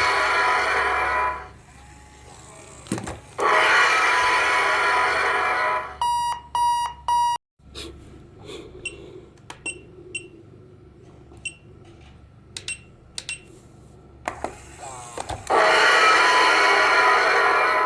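Alarm clock ringing loudly in three bursts of about two seconds each, a dense metallic ringing of a rapidly struck bell, with three short beeps after the second burst and a quieter stretch of small clicks before the last burst starts near the end. The clock is being driven on high voltage.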